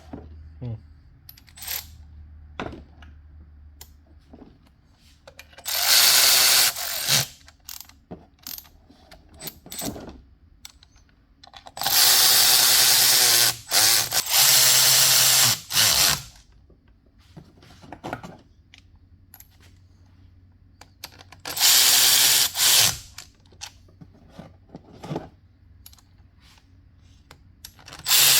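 Power drill running in four short bursts of one to four seconds each, its pitch wavering as the speed changes; the longest comes about twelve seconds in. Between the bursts there are small clicks and knocks of tools and parts being handled.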